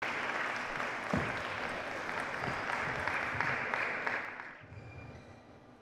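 Applause, steady for about four seconds and then dying away, with a dull knock a little after one second.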